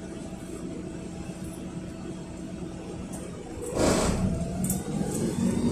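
Inside a LiAZ 5292.67 city bus: its YaMZ-53624 compressed-natural-gas engine idling steadily, then a short loud hiss of compressed air about four seconds in, after which the engine note rises and gets louder as the bus begins to pull away.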